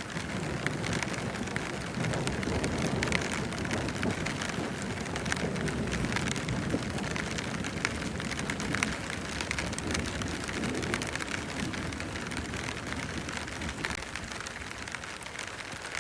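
Heavy rain falling, with many sharp drop hits close to the microphone and a low, uneven rumble underneath.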